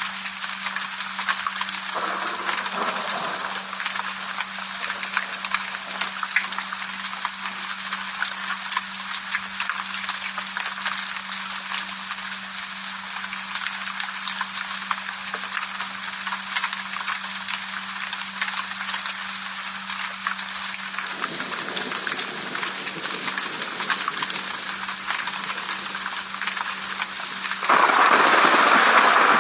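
Rain falling: a steady hiss of many small drop taps over a constant low hum, swelling suddenly louder near the end.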